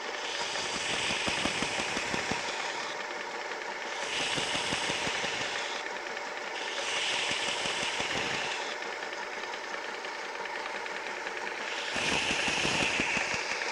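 WorkSharp 3000 sharpener's motor running steadily while a knife blade is drawn slowly through the guide against the spinning medium-grit belt, with a grinding hiss on each of four passes of about two seconds.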